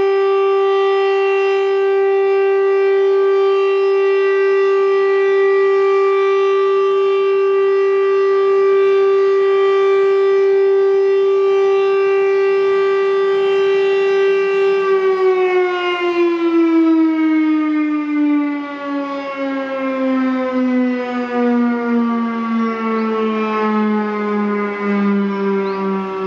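Electromechanical civil-defence siren sounding the end-of-alert signal as one steady, loud tone. About fifteen seconds in the signal ends and the pitch slowly falls as the siren winds down.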